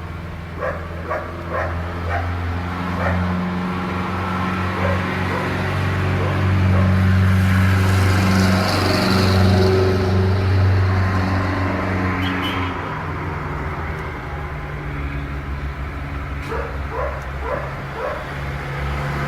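A dog yipping and barking in short quick calls, a cluster in the first two seconds and another near the end, over a steady low hum.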